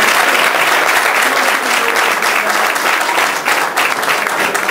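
Applause from a small group of people clapping, dense at first and breaking up into more separate hand claps near the end.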